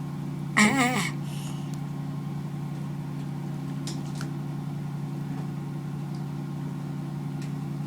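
Male leopard tortoise giving a single wavering mating call about half a second in, over a steady low hum.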